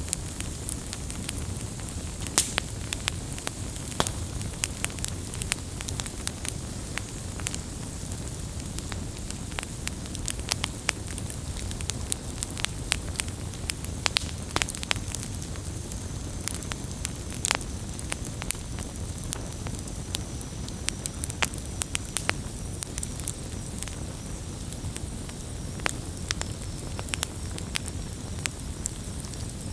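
Wood campfire burning: a steady low rumble of flames with frequent, irregular sharp crackles and pops from the burning wood.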